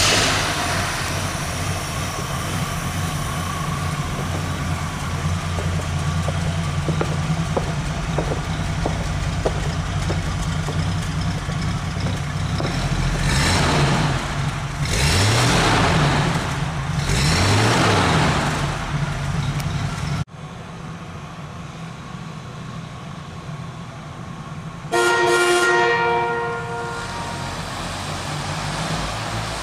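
A 1977 AMC Pacer's 258 cubic-inch inline six idles steadily and is revved three times, each rev rising and falling. Later the engine runs more quietly as the car moves off, and the horn gives one short toot.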